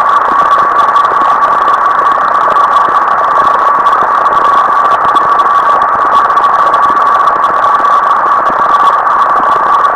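Computer-generated procedural sound from a p5.js pixel-sorting sketch, with the image's pixels rendered as audio. It is a loud, unchanging dense noise held in the middle of the range, with one constant tone running through it.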